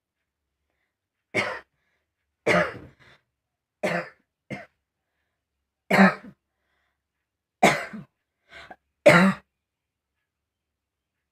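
A person coughing deliberately and hard, about eight separate coughs spaced a second or so apart, some with a weaker second cough close behind. The throat is sore from the repeated coughing.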